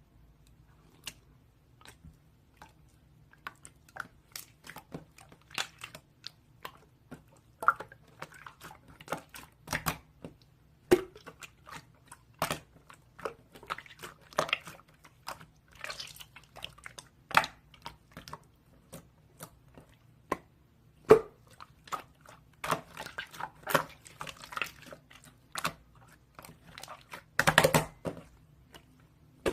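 Irregular close-up clicks, taps and rustles of small objects being handled, over a faint low hum, with a louder cluster of them near the end.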